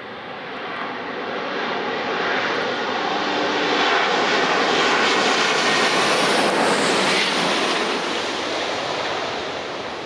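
Twin-engine jet airliner passing low overhead on its landing approach. The engine noise swells, is loudest about five to seven seconds in as the jet goes over, then fades as it moves away.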